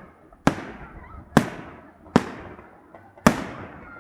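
Fireworks salute: four loud aerial shell bursts about a second apart, each trailing off in a fading echo.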